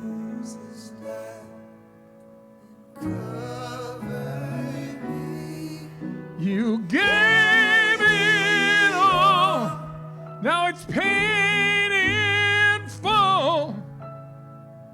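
Worship song with keyboard and bass: a held chord fades out, the band comes back in about three seconds in, and from about seven seconds a solo voice sings long held notes with vibrato, with no words the recogniser could catch.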